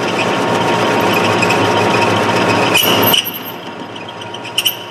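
Lathe tool taking a light facing cut across the end of a spinning schedule 80 2-inch steel pipe: a loud, scraping cutting noise with a high ring that cuts off suddenly about three seconds in as the tool clears the work. The lathe keeps running with a steady hum, and a few sharp ticks come near the end.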